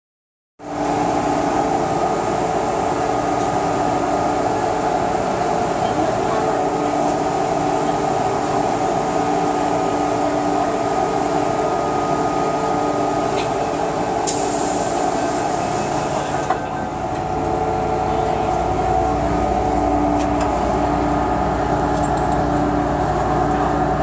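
Inside an MTR M-Train carriage standing at a station and then starting off: a steady hum from the train's onboard equipment, a burst of hiss lasting about two seconds past the middle, and a low rumble that grows over the last few seconds as the train begins to move.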